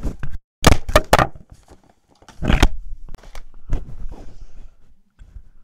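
Close rustling and scraping handling noise in several loud, irregular bursts: hands working at a dressmaker's dummy with a microphone set on top of it.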